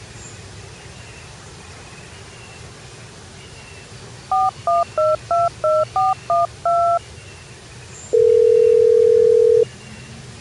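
Telephone keypad tones: eight quick two-note dialling beeps, the last held a little longer, followed about a second later by one steady tone lasting about a second and a half. Faint, high, repeated chirps sit in the background.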